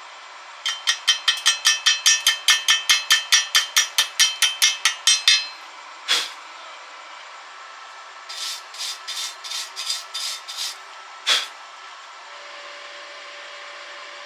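Rapid metal-on-metal strokes from a hand tool cleaning a weld, about five a second for some four and a half seconds. A single stroke follows, then a shorter, uneven run of strokes about two seconds later, and one last stroke.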